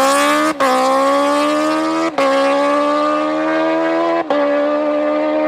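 Kawasaki H2R's supercharged inline-four accelerating hard, its pitch climbing steadily, with three brief cuts in sound about half a second, two seconds and four seconds in as it upshifts.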